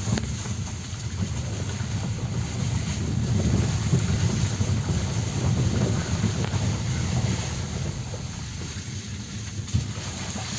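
Steady low rumble of a car driving slowly over a rough, muddy dirt track, heard from inside the cabin: engine and tyre noise, with a single knock near the end.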